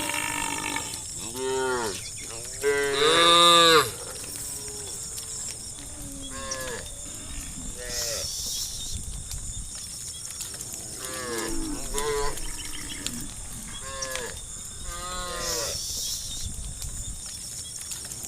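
Cattle mooing, a dozen or so calls one after another, each rising and then falling in pitch. The loudest and longest moo comes about three seconds in.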